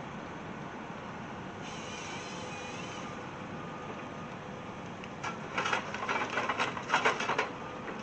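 Excavator's diesel engine running steadily at a distance while it works a pile of burnt slash. Starting about five seconds in, a quick run of loud cracks and clacks lasts about two seconds as branches and logs are handled.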